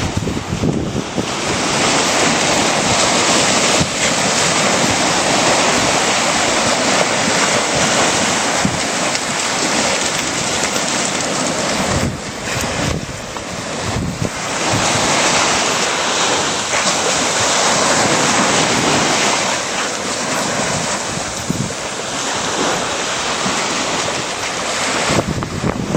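Ocean surf breaking and washing up the beach, a loud hiss that swells and eases several times, dipping briefly about halfway through.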